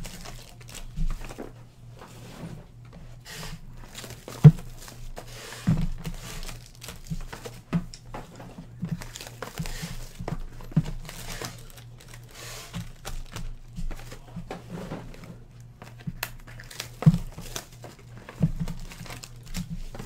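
Foil trading-card pack wrappers crinkling as a cardboard card box is opened and handled. Several sharp knocks or clicks come in between, the loudest about four and a half seconds in.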